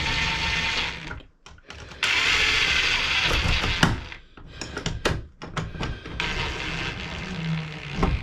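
Cordless drill/driver running in three short bursts with brief pauses between, driving screws.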